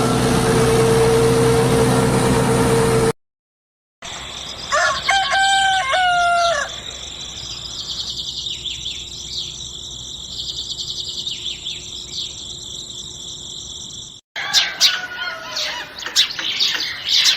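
A rooster crowing once, a long call of about two seconds, over a steady high hiss, followed by birds chirping rapidly near the end. Before these, a loud rushing noise runs for about three seconds and cuts off suddenly into a short silence.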